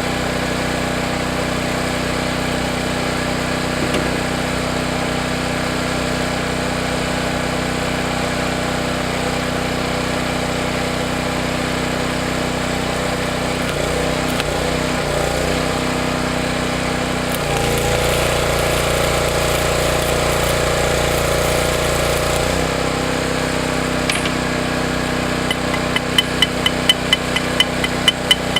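Stick welder arc running a bead on a cracked cast-iron vise: a steady crackle and buzz with a mains hum, changing tone for several seconds past the middle. Near the end, rapid hammer taps start on the weld, three or four a second, as when peening it.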